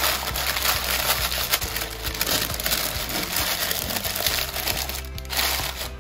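Sheet of baking paper crinkling and rustling as it is crumpled and tucked around a dish by hand, over background music.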